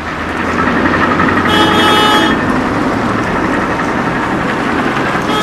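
Road traffic noise with a steady low hum. About half a second in, a vehicle horn sounds, held as a steady multi-tone note for nearly two seconds.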